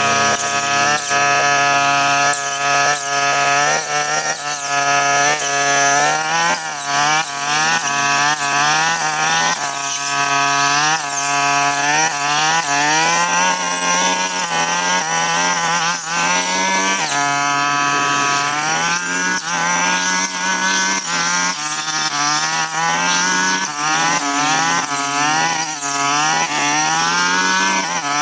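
Two-stroke brush cutter engine running at high revs while cutting dense brush. Its pitch repeatedly dips and climbs back as the blade bogs down in the growth and frees itself.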